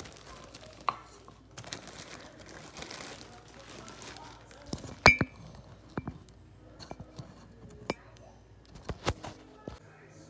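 A plastic bag crinkling as it is handled, followed by a few sharp knocks of objects set down on a counter, the loudest about five seconds in.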